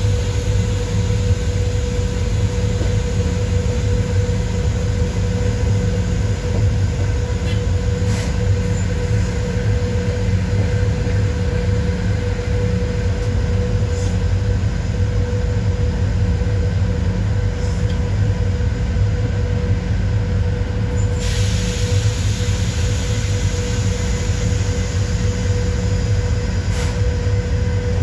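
A PKP Cargo ET22 six-axle electric freight locomotive running slowly, heard from the cab. There is a steady low rumble with a constant hum, and a few sharp clicks as the wheels cross rail joints and points. A hiss sets in about three quarters of the way through.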